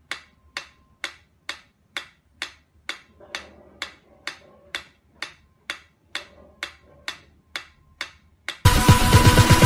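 A pyramid-shaped mechanical metronome ticking at a steady tempo, about two ticks a second. Loud electronic music cuts in near the end.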